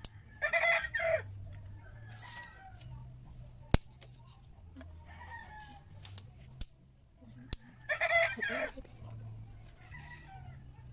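Rooster crowing twice, once near the start and again about eight seconds in, with fainter bird calls between. A few sharp snaps from the wood fire.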